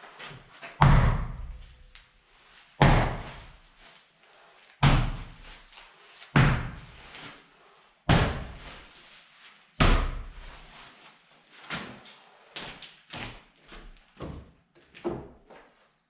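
Heavy bags of concrete mix dropped one after another, each landing with a loud, echoing thud about every one and a half to two seconds. In the last few seconds, lighter knocks of footsteps on the plywood subfloor.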